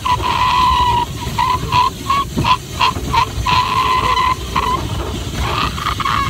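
A boy's voice holding a high, steady "aaah", then breaking into rapid stuttering pulses about four a second, holding steady again for a moment, and stuttering once more.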